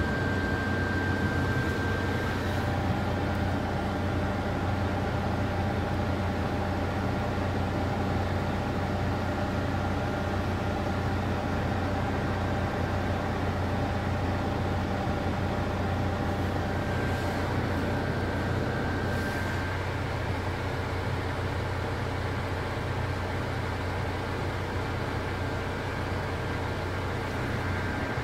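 Bus under way heard from inside the passenger cabin: a steady low engine and road drone with a faint, steady high whine over it.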